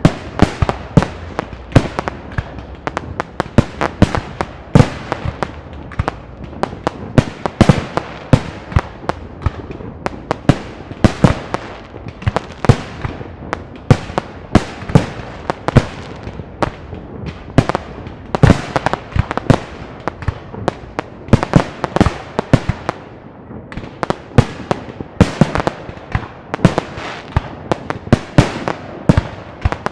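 Park fireworks display: a dense, irregular barrage of shell bursts and cracks, several a second, over a steady crackling haze.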